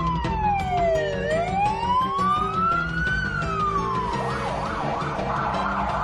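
Police car siren wailing slowly down and back up, then switching to a rapid yelp about four seconds in, over background music.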